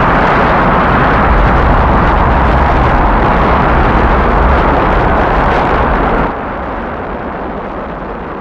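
Rocket engines firing at liftoff: a loud, steady rumble that drops abruptly about six seconds in to a quieter, muffled rumble.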